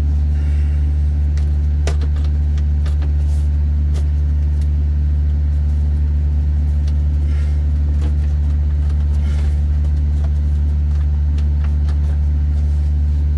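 Truck APU engine running with a steady low hum, joined by a few light clicks and knocks as parts of the open evaporator blower unit are handled.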